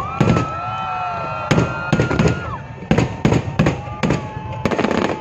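Aerial firework shells bursting overhead in a quick series of sharp bangs, about ten, coming closer together near the end. A long steady high whistle runs through the first half.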